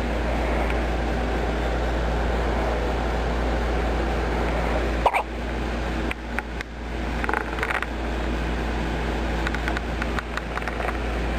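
A single sharp hiccup about five seconds in, over a steady low background hum, with a few fainter clicks and small sounds after it.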